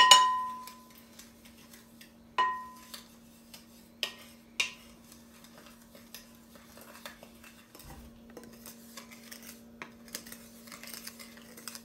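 Wooden spoon stirring dry fine sand and cornstarch in a glass mixing bowl. The spoon knocks against the glass four times in the first five seconds, and the bowl rings briefly after the first two knocks. Fainter gritty scraping follows, over a faint steady hum.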